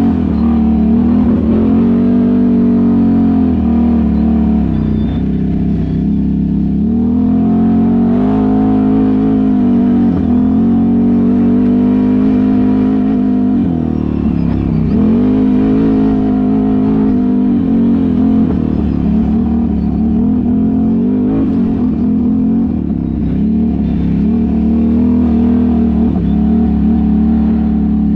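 ATV engine running under way on a dirt trail, its pitch dropping and climbing again several times as the throttle is eased off and opened back up.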